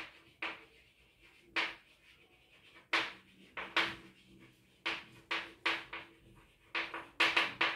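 Chalk writing on a blackboard: about a dozen short, irregular scratches and taps of the chalk, with brief pauses between the strokes and a quick cluster near the end.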